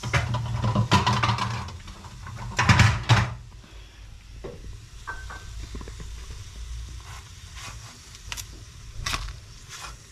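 Clatter and knocks of a utensil and plate against a flat griddle pan as grilled spring rolls are lifted off it, loudest right at the start and again about three seconds in, then a few light clicks. A steady low hum runs underneath.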